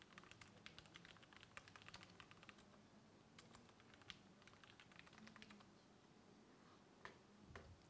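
Faint typing on a laptop keyboard: a quick run of keystrokes for the first couple of seconds, then scattered keypresses, with a couple of slightly louder taps near the end.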